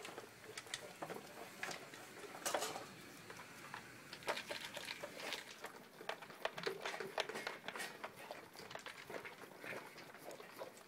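A dog eating from a bowl: many quick, irregular crunches and clicks of chewing and of food and muzzle against the bowl, busiest in the middle.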